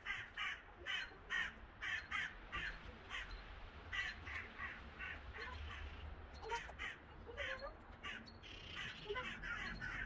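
Birds calling: a run of short, harsh calls repeated about three times a second, spacing out and growing more irregular after a few seconds.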